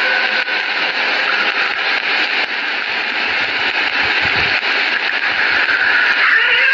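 Steady hiss and crackle of an old, worn recording of the azaan (Islamic call to prayer) in a pause between phrases. A held note of the muezzin's voice fades out about half a second in, and his chanting resumes near the end.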